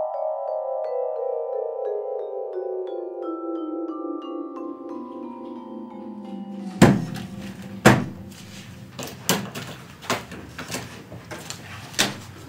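A descending run of mallet-percussion notes, like a vibraphone or marimba, stepping steadily down in pitch for about six seconds. About seven seconds in, a sharp thump cuts in, a second one follows a second later, and then scattered smaller knocks and rustling.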